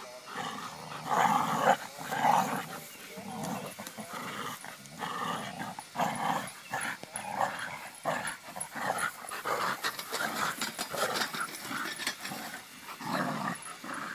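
Pit bulls play-growling as they tug at a BMX bike's tire, in short, irregular repeated growls, loudest about a second in.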